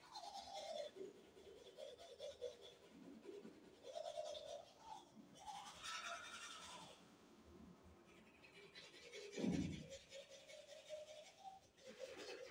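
Teeth being brushed with a toothbrush, a faint scrubbing that comes and goes, with one low thump about nine and a half seconds in.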